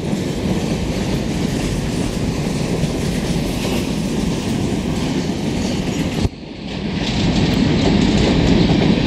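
Covered hopper cars of a CN freight train rolling over a concrete railway overpass: steady noise of steel wheels running on the rails. The sound drops off sharply about six seconds in, then builds back louder.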